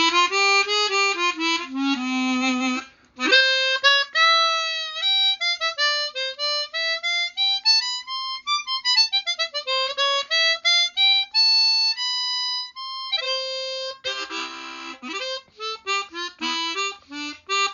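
Eastop Professional Performer 12-hole chromatic harmonica being test-played. It starts with low held notes, moves into a phrase that climbs and falls back, and ends with quick short notes and chords. A little noise is heard, which the player puts down to the instrument not being warmed up.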